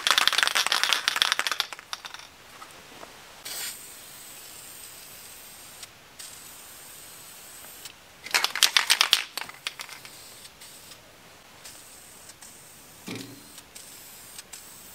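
Aerosol spray can sprayed in two short bursts, one of about two seconds at the start and another about eight seconds in, with a brief fainter spray in between and a light knock near the end.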